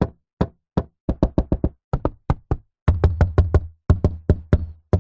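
Knocking on a door: a few single knocks about half a second apart, then quick runs of raps, with the heaviest, deepest pounding from about three seconds in.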